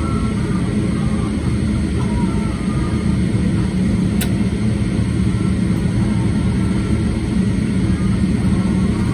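Steady low drone inside the cabin of a Boeing 777-300ER parked at the gate: the hum of its air supply and running systems. A single short click about four seconds in.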